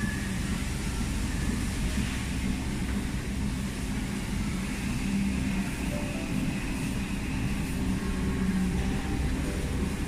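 Rotary milking parlour machinery running: a steady, low mechanical drone with a few held hums, from the turning platform and milking equipment.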